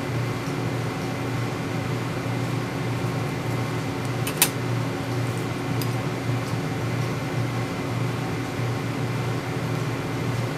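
Steady mechanical hum with a fan-like whir and a low droning tone, broken by one sharp click about four and a half seconds in.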